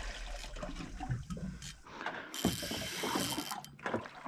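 Water sloshing and splashing, with the clicking, whirring mechanism of a spinning reel as a hooked golden trevally pulls against the rod. A steadier hiss starts and stops abruptly in the middle.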